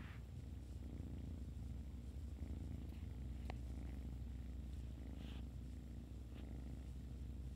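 A cat purring close to the microphone: a steady, low, rapidly pulsing rumble, with one light click about halfway through.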